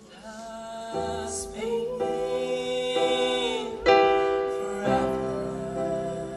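Live pop-rock song intro: a keyboard plays sustained chords that change about once a second, with a melody line over them, swelling up from a quiet start.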